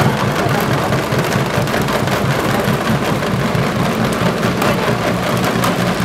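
A steady motor hum whose pitch wavers slightly, with a dense scatter of faint ticks over it.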